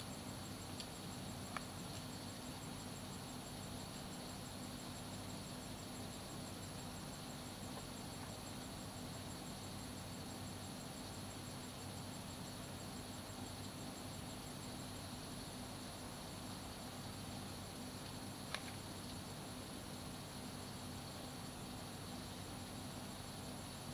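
Steady outdoor background of insects calling in continuous high tones, one of them a fast pulsing trill, over a low steady hum. Two faint ticks, about a second and a half in and again near the 18-second mark.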